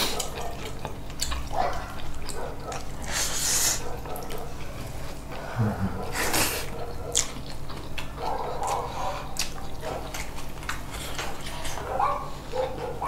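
Close-miked eating sounds: wet chewing and mouth clicks, with two short hissy slurps about three seconds apart.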